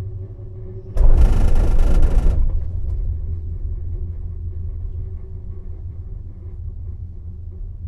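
Gondola lift cabin running along the haul rope with a steady low rumble. About a second in, a loud rattling rumble lasts about a second and a half and then fades: the cabin's grip running over the rollers of a lift tower.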